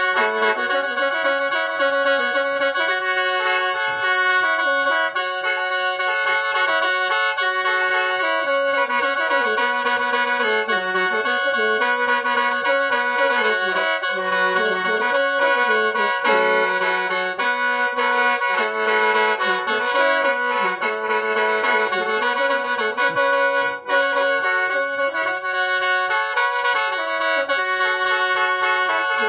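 Lao khaen, a bamboo free-reed mouth organ, played solo: a continuous melody moving over steady held drone notes, with no pause for breath.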